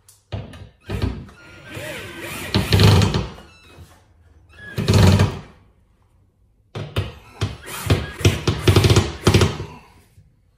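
Black+Decker cordless drill driving a lag bolt through a steel TV wall-mount bracket into a wall stud, running in several bursts of one to three seconds with short pauses between. The drill labours as the bolt resists in the stud wood.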